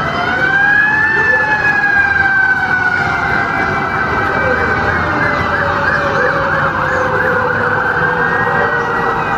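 Wailing siren: a long tone that rises about a second in and then slowly falls, with fainter gliding tones beside it.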